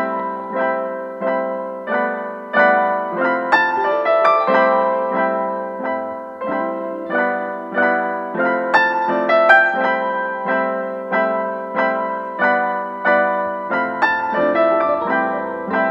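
Background music: solo piano playing a steady run of notes, each struck and left to ring out.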